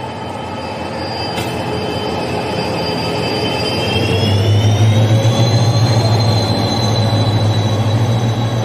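Passenger train rolling past along the platform, a WDP4D diesel locomotive going by and its coaches following. A steady high whine glides up in pitch about four seconds in, and a low rumble swells in at the same time.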